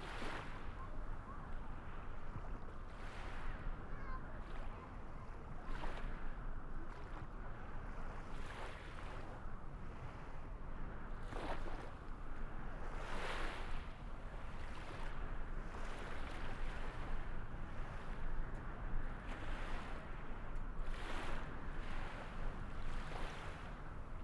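Water washing in repeated swells every second or two, over a steady low rushing rumble.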